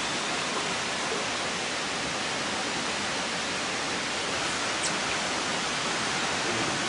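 Steady, even rushing of a river's running water.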